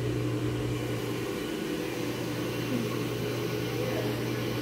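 A steady low mechanical hum from a running machine such as a kitchen appliance or fan, with no distinct knocks or clatters.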